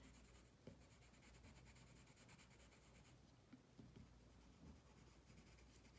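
Faint scratching of a colored pencil on drawing paper, a run of quick, short strokes shading in feather texture.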